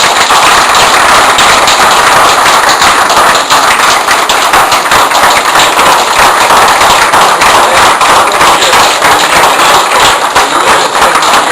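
Audience applauding loudly and steadily, a dense crackle of many hands clapping at once.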